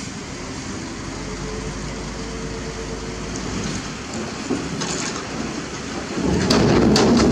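Kobelco crawler crane's diesel engine running with a steady low rumble, growing louder about six seconds in, with a few sharp knocks near the end.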